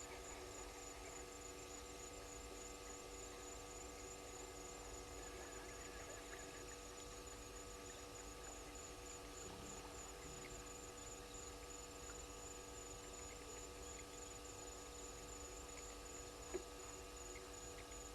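Faint steady electrical hum of several even tones, with a high, thin, rapidly pulsing trill above it. A single short click comes near the end.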